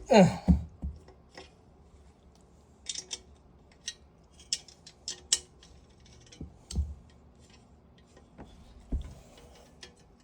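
Scattered clicks, taps and a few dull thumps from small fan parts being handled and adjusted by hand, with a brief falling-pitched sound at the very start.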